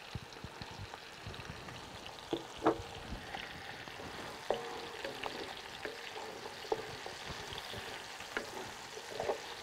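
Pork belly, red pepper and freshly added chopped garlic frying in olive oil in a deep black pan, with a steady sizzle. A wooden spoon stirs and now and then clicks against the pan. The garlic is being gently fried as the flavour base for migas.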